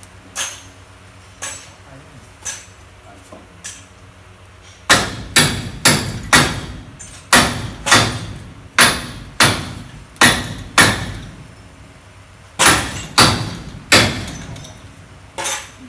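Manual chain hoist lowering a suspended engine: sharp metallic clanks, each with a short ringing tail, a few spaced ones at first, then a steady run of about two a second, with a short pause before three more near the end.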